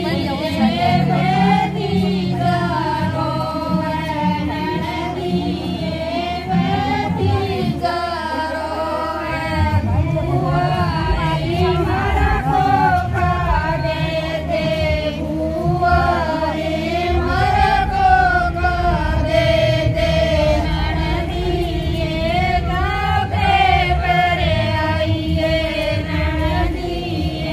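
A group of women singing a Haryanvi folk song together in unison, a village women's song of the kind sung at night gatherings.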